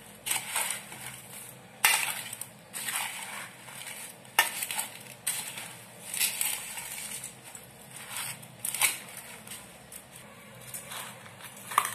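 Steel spoon stirring dry puffed rice in a stainless steel bowl: the puffed rice rustles and crunches as it is turned over, and the spoon clinks sharply against the bowl a few times.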